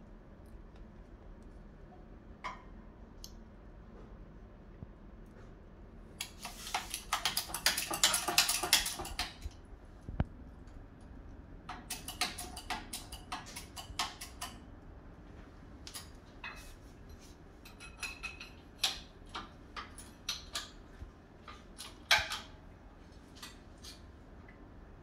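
Metal clicking and clinking from a small bottle-jack hydraulic bench press being worked by hand: two bursts of rapid clicking, then single sharp clicks every second or so as the jack handle is pumped to force an embossing die into leather.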